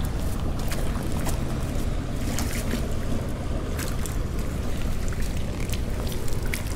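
Steady low rumble and hiss of wind on the microphone, with scattered light clicks.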